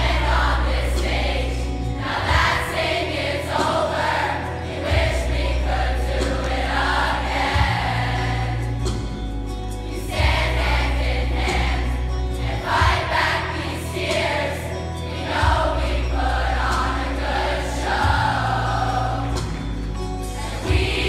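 A large choir of young voices singing together over an accompaniment of sustained low bass notes that change every couple of seconds.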